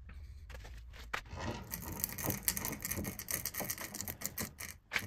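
A mill horizontal power feed starting up about a second in, its freshly greased spur gear meshing with the leadscrew gear with a dense, irregular crackling and ticking: the sound of fresh grease being worked through the gear teeth.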